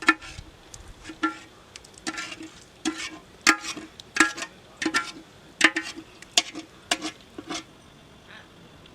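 A metal spoon stirring and scraping in a metal pot: about a dozen irregular clinks that ring briefly, stopping about seven and a half seconds in.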